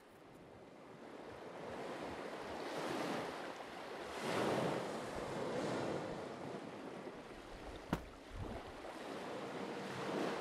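A rushing, surf-like noise that builds, swells twice and slowly ebbs, with one sharp click about eight seconds in.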